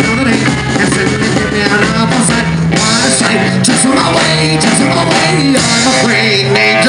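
Live rock-and-roll band playing: a man singing into a microphone over electric guitar and drums.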